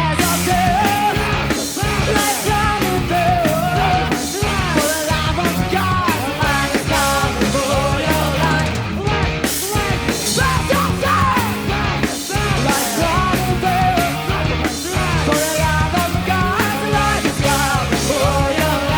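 Live rock band playing a punk-leaning rock song: drums, electric guitars and bass, with a voice singing over them.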